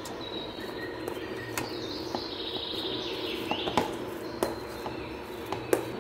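A metal potato masher clinking sharply against a steel bowl a handful of times as boiled potatoes are mashed, over a steady background hiss with faint chirps.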